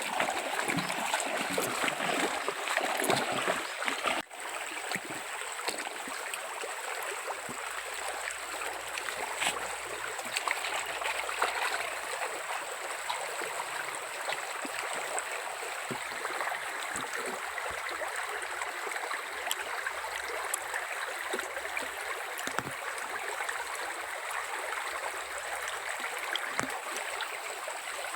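Jungle stream flowing: a steady rush and babble of running water, with a thin steady high tone above it.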